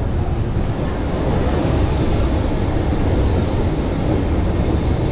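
Old museum tram running along street rails, heard from its open side window: a steady low rumble of wheels and running gear. It grows a little louder in the middle as a modern tram passes close alongside.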